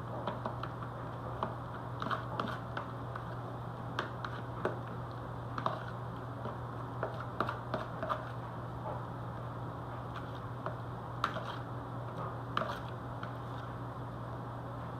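A kitchen utensil scraping out a bowl of cauliflower coating, with scattered light clicks and scrapes at irregular intervals. A steady low hum runs underneath.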